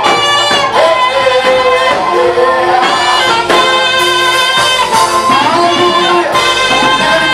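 Live praise music: a band playing a song, with voices singing.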